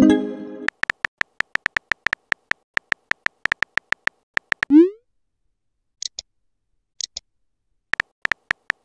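Rapid, irregular keyboard clicks from a simulated phone texting app as a message is typed. A short chime sounds at the start as a message arrives, a short rising bloop about five seconds in as the typed message is sent, and after a pause of a few seconds the clicking starts again near the end.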